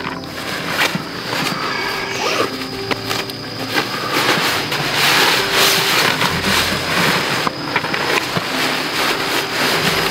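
Nylon fabric rustling and crinkling, with scattered clicks and scrapes, as gear is pulled and handled out of an insulated delivery backpack.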